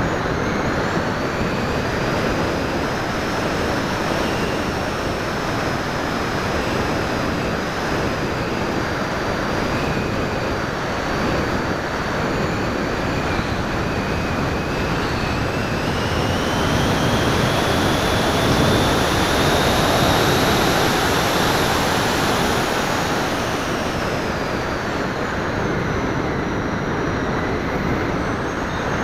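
Onboard sound of an FPV model aircraft in flight: a steady rush of wind over the airframe and microphone, with a high motor-and-propeller whine. Roughly halfway through, the whine rises in pitch and gets louder for several seconds, then falls back.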